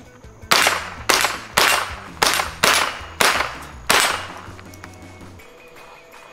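Seven quick shots from a scoped Smith & Wesson .22 Long Rifle AR-platform rifle, fired semi-automatically at about two a second, each a sharp crack with a short ringing tail.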